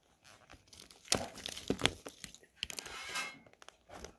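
Plastic wrap and tape being peeled and torn off a plastic toy capsule ball, crinkling and tearing in irregular bursts. It is loudest between one and two seconds in and again around three seconds in.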